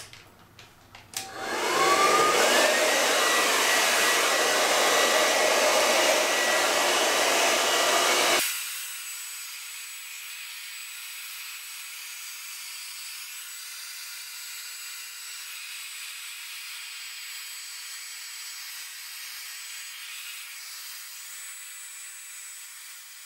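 Handheld hair dryer switched on about a second in: its motor whine rises as it spins up, then it blows with a steady loud rush. About eight seconds in the sound drops abruptly to a much quieter, thinner hiss that carries on.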